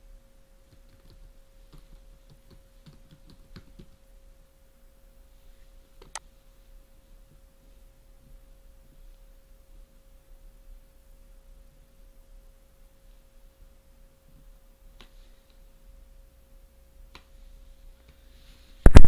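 Faint computer keyboard typing and mouse clicks over a steady faint electrical tone: a cluster of light key clicks in the first few seconds, then single sharper clicks about six seconds in and twice more near the end.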